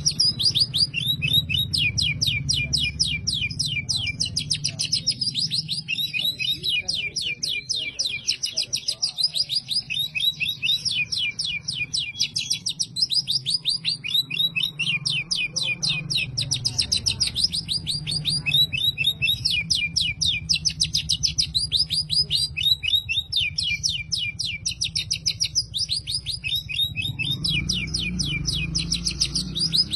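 Oriental magpie-robin singing continuously in long rapid trills. Its song is made up of canary-style phrases.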